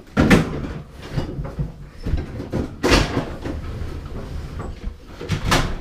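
Knocking and scraping from handling the old fridge freezer and its plastic parts: three loud knocks, one at the start, one about halfway through and one near the end, with shuffling and rumbling between.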